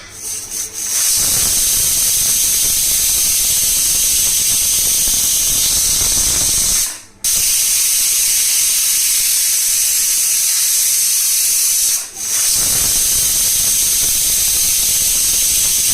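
Pressure cooker whistle venting steam three times in a row, each a loud hiss with a high whistling tone lasting about four to six seconds, with short breaks between. The third whistle marks the contents as cooked.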